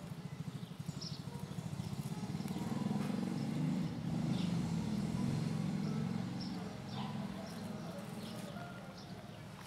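Kitten purring steadily as it is stroked, the purr swelling about three seconds in and easing off later, with light rustles and ticks of dry grass.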